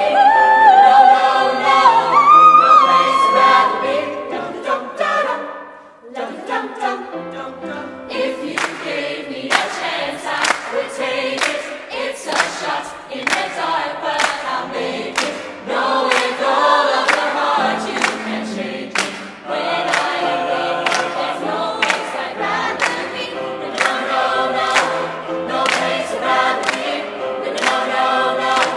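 A youth choir of mixed voices singing. There is a short dip about six seconds in, and after it a steady beat of sharp hits runs under the voices.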